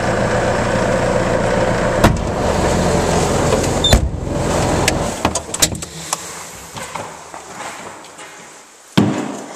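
Skid steer's 73 hp turbo diesel running steadily, then dying away about five and a half seconds in as it is shut off. Sharp clicks come while it runs, scattered clicks and clunks follow, and there is a loud knock near the end.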